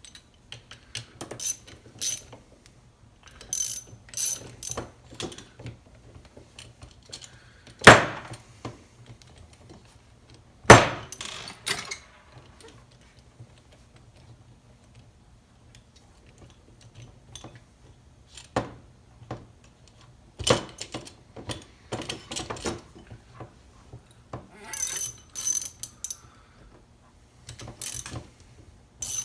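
Metal hand-tool clicks and ratchet-like clicking as a piston pin pusher is worked to press the wrist pin out of a chainsaw piston. Two louder sharp metal knocks come about a third of the way in.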